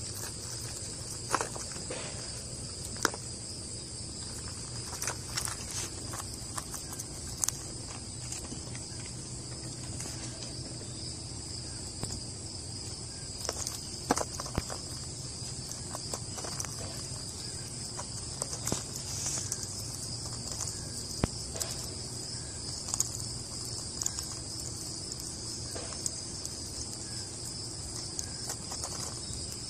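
Steady high-pitched insect chorus, with irregular light clicks and rattles of in-shell peanuts being shifted about in a plastic bowl by feeding chipmunks.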